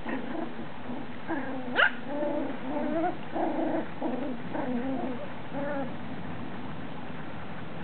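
Puppies yipping and whining at play in a run of short calls, with one sharp upward-sweeping yelp about two seconds in; the calls stop about six seconds in.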